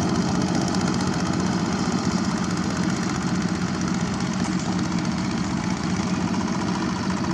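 Two-wheel walking tractor's Kubota diesel engine running steadily under load with a fast, even pulse as it works through paddy mud.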